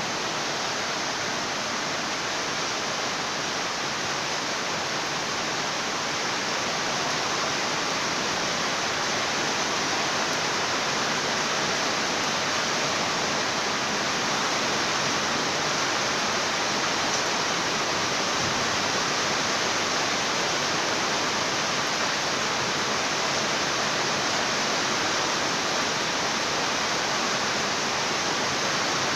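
Steady rainfall making an even, unbroken hiss, with no thunder.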